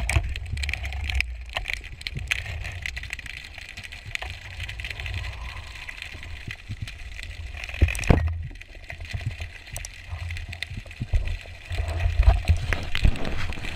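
Muffled underwater sound through a camera housing during a free dive: a low rumble of water moving past, with scattered clicks and knocks and a sharper knock about eight seconds in.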